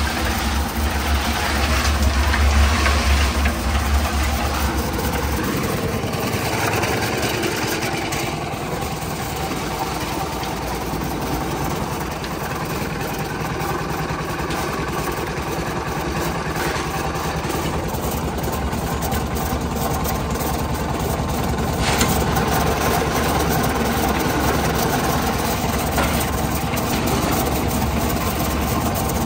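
Portable concrete mixer running steadily, its engine turning the drum full of wet concrete. A deeper low hum is stronger for the first few seconds.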